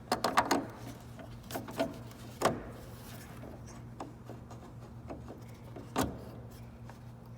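Sharp clicks and knocks of hand work as a bolt is fitted back in place: a quick cluster right at the start, a few single knocks around two seconds in and one more near six seconds, over a low steady hum.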